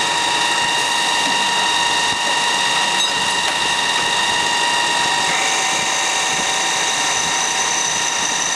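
MSI ChamferMate chamfering machine running, its turning head spinning on the end of a clamped steel bar: a steady machine whine with several high steady tones. There is a sharp click about three seconds in, and the tones shift slightly about five seconds in.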